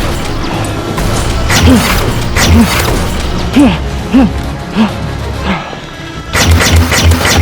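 Loud background music with repeated percussive hits. Near the end the treble drops away for about a second, then a heavy steady beat kicks in.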